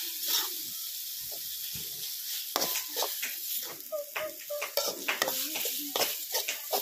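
Metal ladle stirring and scraping chicken blood fry with onions in an aluminium pot, with repeated scrapes against the pot over a steady sizzle.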